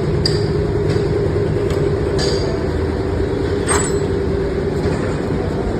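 Steady mechanical drone, as of a running machine or engine, with a few light metallic clicks.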